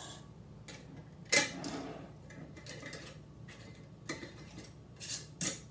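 Glass canning jars knocking and clinking against the counter and the pressure canner as they are picked up and loaded in. There is one loud knock about a second and a half in, and lighter knocks through the rest.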